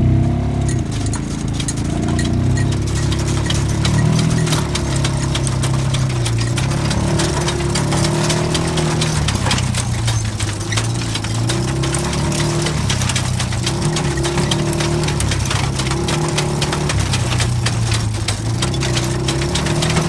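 The engine of a small towing vehicle runs steadily while it pulls a manure spreader, its speed rising and falling a little. A continuous rattle and clatter comes from the spreader's beaters flinging out manure.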